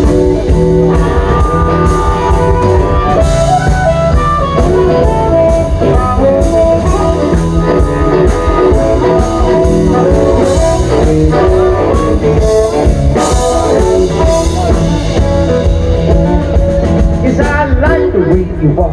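Live blues band playing an instrumental break: a drum kit and bass keep a steady beat under a lead line of held and bending notes.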